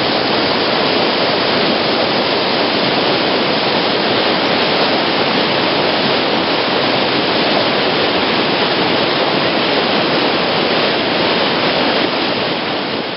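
Whitewater rapids of a steep creek rushing steadily: a loud, even wash of churning water. It begins to fade near the end.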